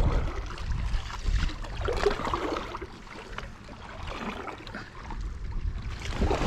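Water splashing and gurgling around an inflatable kayak on the lake, with wind rumbling on the microphone, heaviest in the first couple of seconds.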